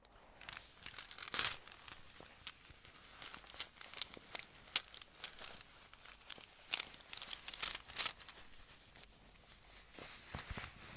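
Close-miked crinkling and rustling of a small plastic bag being handled, with many light, sharp clicks scattered through it.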